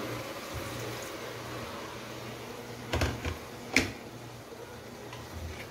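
Water being poured or run for heating, a faint steady wash, with two sharp knocks about three seconds in and just under four seconds in.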